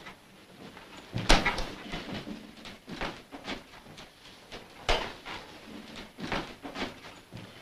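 Footsteps and scattered knocks and thumps of a person moving about a small room, with two louder thumps about a second in and about five seconds in.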